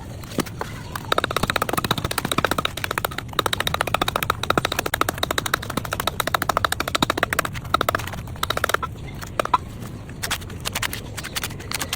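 Rapid, sharp wooden clicks and knocks, several a second, dense for most of the stretch and thinning out to scattered clicks near the end: bamboo being worked with a hand tool.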